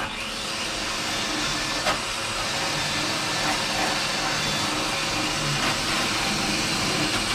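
Handheld electric power tool running steadily, cutting the balsa core out from around a round cutout in a fibreglass hull.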